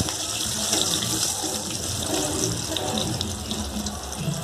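Eggplant and potato wedges sizzling steadily in hot mustard oil in a kadai.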